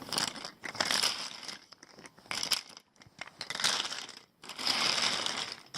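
Crinkling, rustling handling noise in four bursts with short pauses between, as plastic lighters are rummaged through and picked out of the collection.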